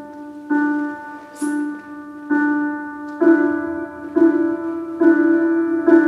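Slow solo piano music: chords struck about once a second, each ringing and fading, growing fuller and louder about three seconds in.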